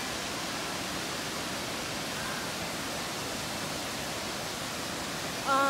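Steady rushing roar of the many cascades of the Kravice waterfalls pouring into the pool below.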